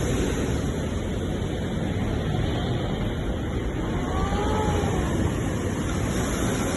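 Sea surf: a steady, loud wash of waves with a deep rumble. A faint tone rises and falls about four seconds in.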